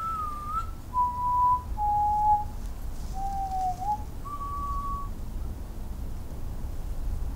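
A person whistling a short five-note tune of clear notes, each under a second, stepping down in pitch and then rising on the last, over a low steady rumble.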